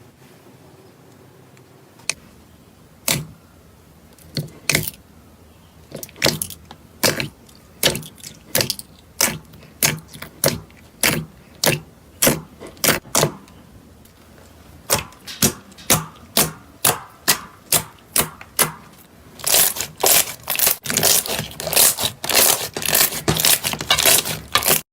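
Slime being pressed and poked, giving a run of sharp clicking pops: at first about two a second, then quicker, and a dense crackling flurry near the end.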